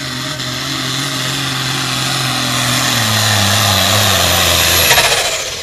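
Modified John Deere 4440 pulling tractor's turbocharged diesel at full throttle, dragging the pulling sled down the track. From about three seconds in the engine note sags lower under the load. A high turbo whine swells to its loudest as the tractor passes about five seconds in, then drops in pitch as it moves away.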